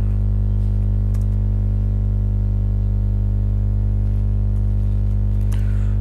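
Steady, loud electrical hum with a buzzy stack of overtones, with a couple of faint computer-keyboard clicks as text is typed.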